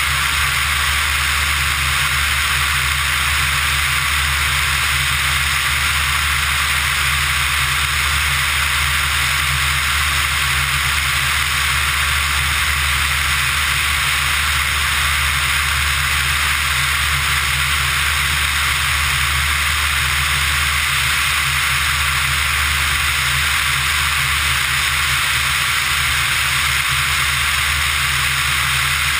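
Steady rush of airflow over the camera, with the low, even drone of a Pipistrel Virus ultralight's engine and propeller in cruise flight underneath. The sound does not change.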